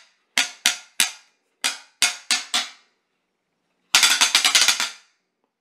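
Handheld wooden clapper toy being worked: sharp wooden clacks in groups of two to five. About four seconds in comes a quick rattling run of a dozen clacks.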